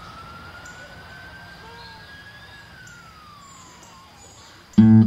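A siren wailing: one slow rise in pitch followed by a fall, over faint background noise. Loud electric guitar music cuts in near the end.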